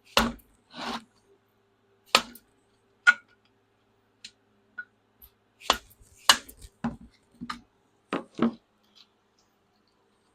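Metal hand tools and parts of a hydraulic control valve being handled: about ten sharp clinks and knocks at uneven intervals, a few with a short metallic ring.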